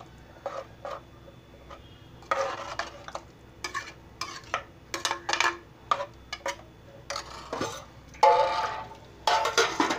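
A metal spoon stirring thick curry in a pressure cooker, scraping and clinking against the pot's sides in irregular strokes. There are louder clattering spells about two seconds in and again near the end.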